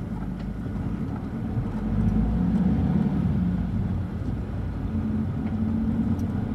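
Car engine and road noise heard from inside the cabin while driving, a little louder from about two seconds in.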